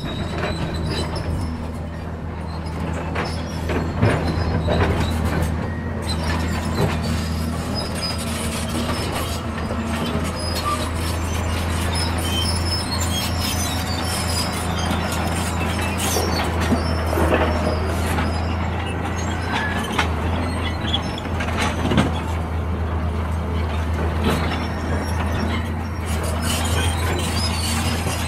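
Diesel engines of excavators and dump trucks running steadily, with scattered clanks and thuds as rock is dropped into a steel truck bed. The loudest knocks come about four seconds in and again about twenty-two seconds in.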